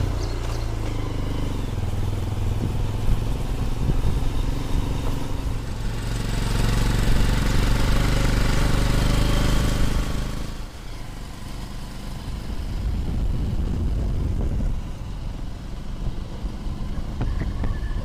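A motor vehicle's engine running as it drives along, with rushing wind noise that grows louder for a few seconds and drops away about ten seconds in.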